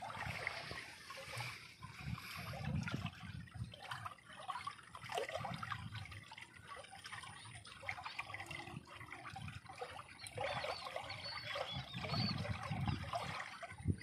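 Shallow stream water running and trickling over stones, with low rumbles coming and going.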